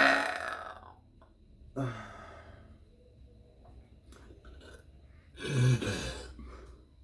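A woman's long, loud burp trailing off in the first second, then a short low burp about two seconds in and another, louder one a little past five seconds.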